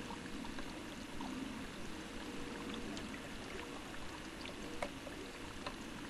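Steady running water, with a few faint clicks.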